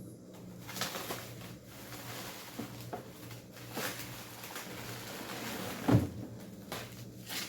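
Packaging being handled while unboxing plastic fridge organizers: faint rustling and small knocks, with one soft thump about six seconds in.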